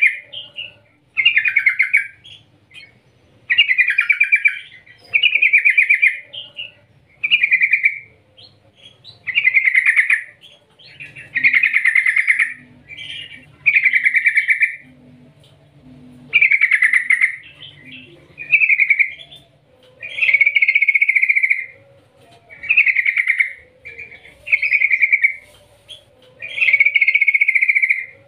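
Yellow-vented bulbul in full, energetic song: loud short phrases repeated about once every one and a half to two seconds.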